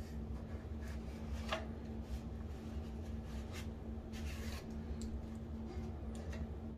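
Faint scratching and rubbing of hands working over a foam deer taxidermy form while fitting its eye, over a steady low hum.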